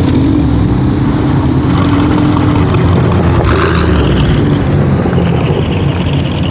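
Car engine running hard during a drag-race run: a loud, steady drone whose pitch holds with only slight wavering.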